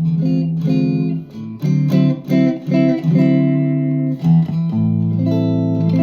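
Harley Benton TE-62CC Telecaster-style electric guitar played through an amp: a run of picked chords and notes, some short and some held about a second, with short breaks between phrases.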